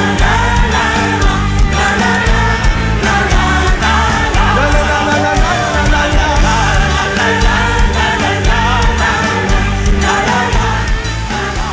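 Upbeat gospel worship song: a band playing over a steady beat, with a choir singing.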